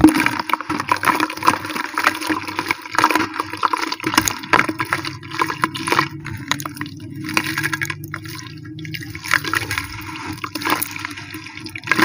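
Dry sand-cement clumps crumbled by hand into a tub of water: gritty crackling with splashes and trickles of falling grains, over a steady low hum.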